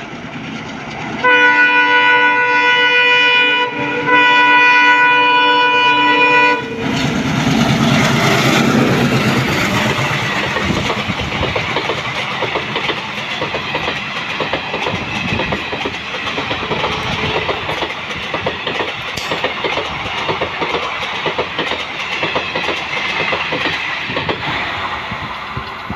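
An ALCO diesel locomotive's horn sounds two long blasts. Then the locomotive passes with its diesel engine chugging loudly, followed by the coaches rattling and clattering over the rail joints at speed.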